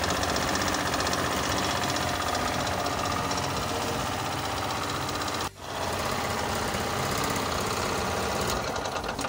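Elepaq EC3800CX petrol generator's engine running steadily, shaking the set, with low engine speed and low output current, symptoms that a bad governor spring can cause. The sound drops out for an instant just past halfway.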